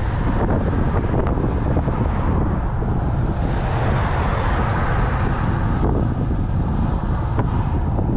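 Constant wind rumble on a moving bicycle's camera microphone, with a car passing close by in the opposite direction, swelling to a peak about four seconds in and then fading.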